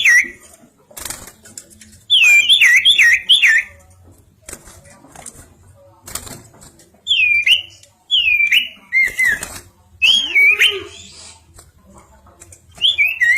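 Common iora (cipoh) singing: short phrases of clear, sliding whistled notes that dip and rise, repeated with pauses of a second or more between them.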